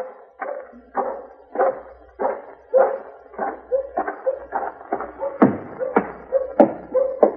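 Radio-drama sound effect of boot footsteps walking at an even pace, a little under two steps a second, each step a short knock with a brief ring after it. A couple of heavier thumps come near the middle and towards the end.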